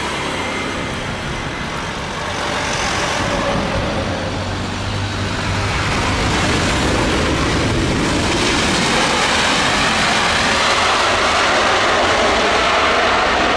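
Airbus A330neo jet airliner's Rolls-Royce Trent 7000 engines as it touches down and rolls out on the runway: a steady rushing jet roar that swells a little about two and a half seconds in and grows louder again from about eight seconds in.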